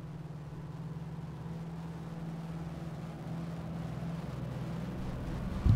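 Low steady drone of a few held tones, slowly growing louder, ended by a sudden loud hit near the end.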